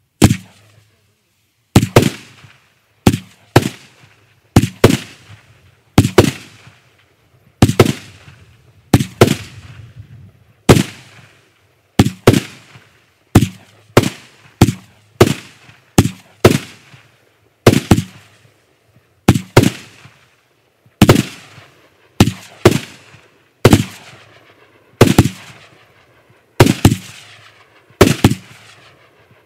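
Kimbolton Fireworks 'Blockbuster' shot tube battery (a firework cake) firing: a sequence of loud, sharp bangs, roughly one a second, each followed by a short ringing tail.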